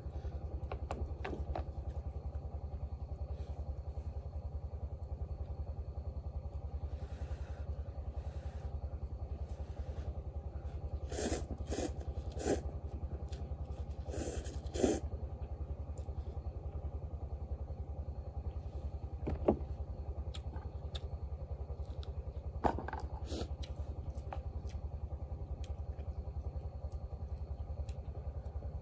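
A person eating noodles from a bowl: several short loud slurps about halfway through, then a few sharp clicks of chopsticks against the bowl. Under it all, a steady low motor drone.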